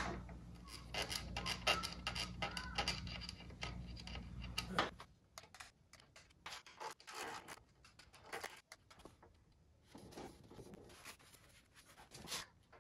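Scattered small clicks and scrapes of a thumb-pump oil can being worked while oiling a motorcycle's rear chain and swing-arm area, with a low steady hum that stops about five seconds in.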